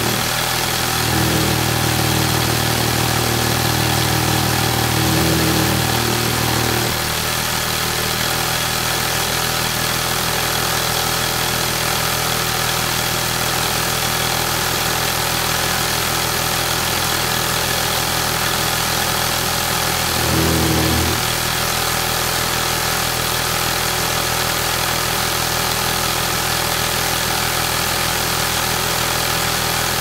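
Industrial sewing machine running. It has a louder, deeper stretch of sewing for the first several seconds and again briefly about twenty seconds in, with a steady mechanical hum between.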